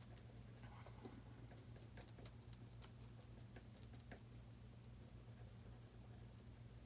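Near silence with a steady electrical hum, and faint scattered clicks and taps of a small screwdriver mixing epoxy on a piece of plastic.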